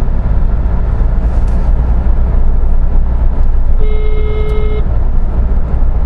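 Steady road and engine noise inside a moving car's cabin. About four seconds in, a single electronic tone sounds for about a second: a phone ringing with an incoming call.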